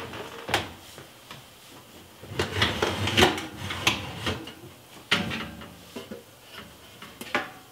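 Metal clanks, knocks and scrapes from an enamelware roasting pan and its lid being handled on an oven rack, a quick cluster of them about two and a half to three seconds in and single knocks scattered before and after.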